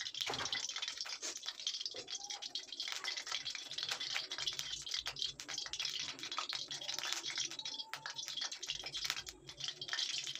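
Cumin seeds and chillies frying in hot oil in an iron kadhai: a steady sizzle with a dense run of small crackles and pops.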